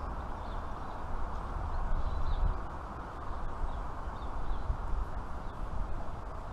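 Wind buffeting the microphone in an uneven rumble, with faint high bird chirps now and then.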